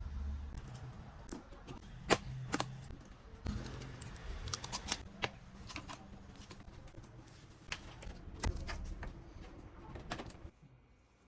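Irregular sharp clicks and taps of computer parts being handled and fitted together during a PC build, with a faint low hum at times. The clicking stops shortly before the end.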